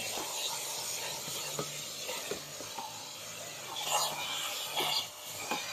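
Canister vacuum cleaner running with a steady hiss and low hum while its nozzle rubs and knocks about inside the car, with a handful of short knocks, the clearest about four and five seconds in.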